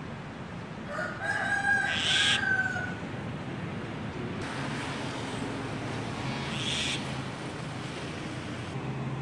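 A rooster crows once, a drawn-out call starting about a second in, followed by two brief hissing sounds and a faint low steady hum.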